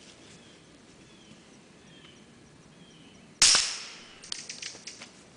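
One suppressed shot from a 9mm Glock 17 fitted with a Liberty Mystic suppressor, firing 158-grain subsonic ammunition, about three and a half seconds in; the meter reads it at 127 dB. A few faint clicks follow about a second later.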